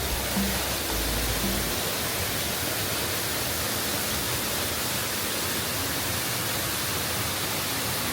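Steady rushing noise of falling water from a waterfall, with a few low music notes fading out in the first couple of seconds.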